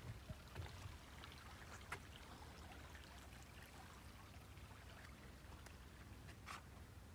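A small woodland creek trickling faintly, with a few soft footsteps on a wooden footbridge in the first second.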